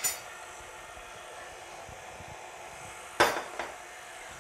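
Glass mixing bowls and utensils clinking: a sharp clink at the start, then a louder clatter a little past three seconds in with a smaller knock just after.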